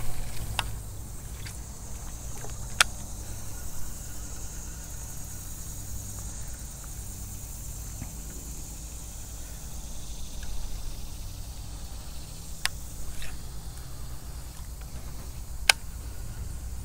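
Outdoor ambience: a steady, high-pitched drone of insects over a low rumble, with four sharp clicks spread through it.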